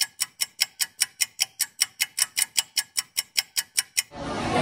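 A fast ticking sound effect like a clock or timer, about six sharp ticks a second, with all other sound cut out; it stops about four seconds in.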